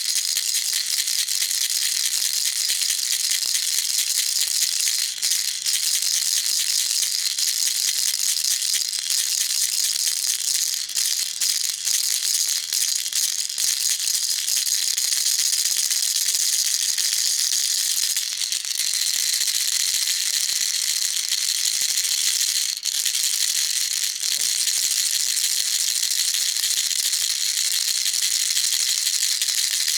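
Baby rattle shaken rapidly and without pause, a dense high-pitched rattling with a few brief catches in the rhythm.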